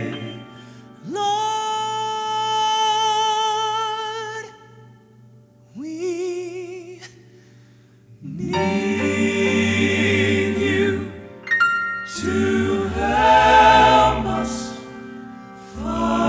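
A male tenor sings a long held note with vibrato, then a shorter phrase. A little over halfway through, the gospel quartet comes in with full close harmony over a low bass voice and builds to a loud chord.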